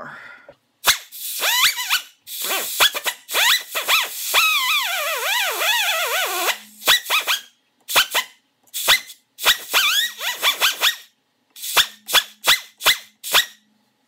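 Pneumatic cut-off wheel grinding into the weld of a steel birdcage flash hider on an AR-15 barrel, run in short bursts with one longer run of about four seconds. A hissing screech with a whine that wavers up and down in pitch as the wheel bites the metal.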